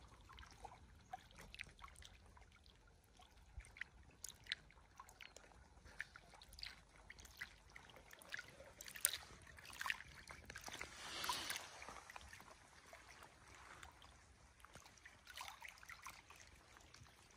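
Small lake waves lapping against the shore: faint irregular splashes and trickles, with a slightly louder wash of water about eleven seconds in.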